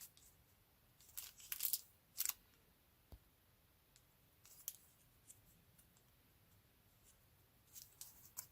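Plastic squishy packaging rustling and crinkling as it is handled, in a few short bursts, most between about one and two and a half seconds in and again near the end.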